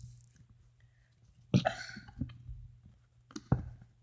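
A few sharp clicks and knocks from handling Play-Doh and its tools, with a short throaty vocal sound from a child about halfway through.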